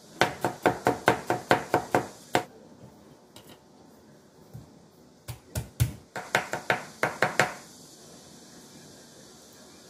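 Kitchen knife chopping on a cutting board, slicing cucumber into matchsticks: a quick run of strokes, about five a second, over the first two seconds or so. A little past halfway come a few heavier knocks, then another quick run of chopping as garlic is minced, which stops well before the end.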